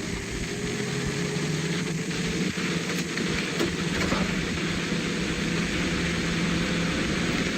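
Kryscape 12 V rooftop RV air conditioner running just after being switched on: a steady hum from its inverter compressor and fan over a rush of air, with the upper tone edging slightly higher over the first few seconds as the unit soft-starts.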